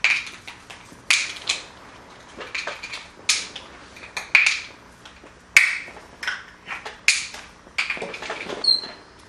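Plastic bottle cap clattering on a hard floor as an African grey parrot tosses and pushes it with its beak: irregular sharp clicks, roughly one a second, with a brief high squeak near the end.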